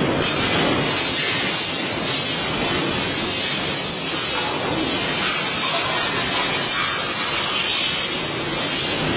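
Chain conveyor of a production line running, carrying metal pallets on blue chains: a steady, even rushing noise.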